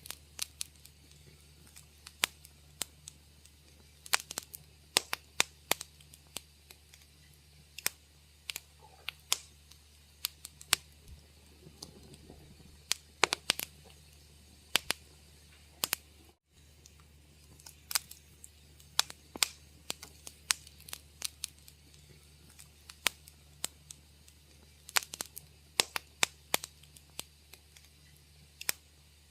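Wood fire crackling: irregular sharp pops and snaps, some in quick clusters, over a faint steady low hum. The sound cuts out for an instant about halfway through.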